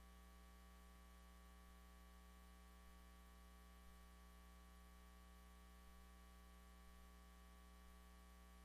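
Near silence: faint steady electrical hum of the recording's noise floor.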